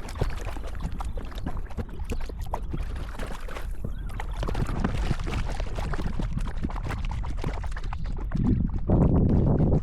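Kayak paddle strokes: the blades dip and splash, and water drips and trickles off them in many small irregular splashes. A louder rush comes about a second before the end.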